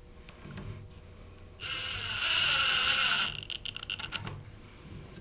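Cordless impact driver driving a flathead screw into a small wooden latch tab: a few light clicks, then the driver runs loudly for about a second and a half, followed by about a second of rapid clicking as the screw seats.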